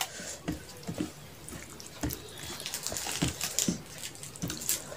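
Fingers mixing rice with curry on a plate, making irregular wet squelches and sticky clicks.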